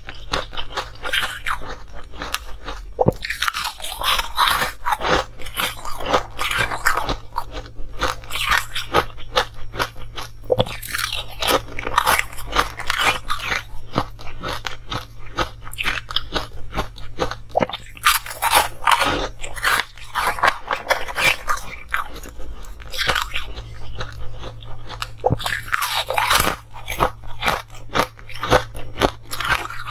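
Frosty, coloured ice cubes being bitten and chewed: a run of sharp, crackling crunches, bite after bite.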